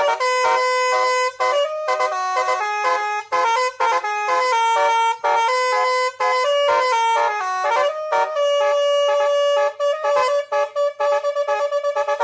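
Nine-trumpet musical horn with a nine-note ARF module playing a tune note by note, loud and with short breaks between phrases. One long held note comes about two thirds of the way through, and quick short notes follow near the end.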